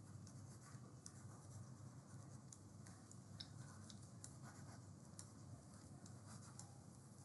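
Faint scratching and light ticks of a pen stylus writing out words by hand, over quiet room tone.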